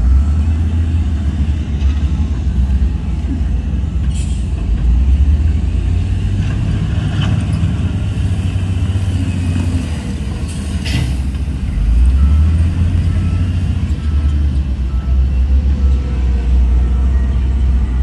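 Heavy diesel engines of a dump truck and a wheel loader running, a steady deep rumble that swells and eases, with two short sharp sounds, one about four seconds in and one about eleven seconds in.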